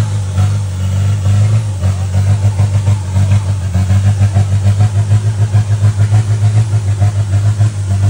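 Off-road 4x4 truck engine running steadily at a low, constant pitch, its loudness wavering.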